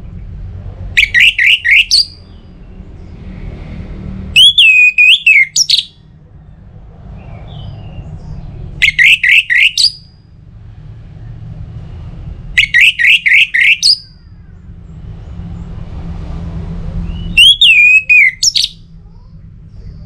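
Orange-headed thrush (anis merah) singing in loud, clear phrases about every four seconds, five in all. Three are a second-long run of quick repeated whistled notes and two are a wavering, falling whistle. A low background rumble fills the gaps between phrases.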